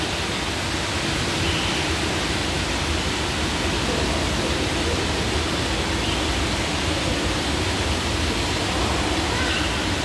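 Steady, even rushing noise, with a few faint short high notes above it.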